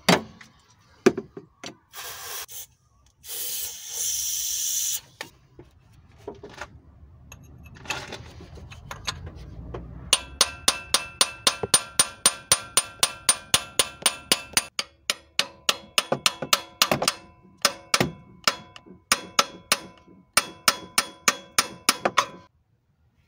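Aerosol penetrating oil sprayed in two short hissing bursts at a seized distributor on a Volvo B230F engine. Then rapid hammer blows, about four a second, in several runs with brief pauses, each ringing on metal, as the seized distributor is beaten to free it.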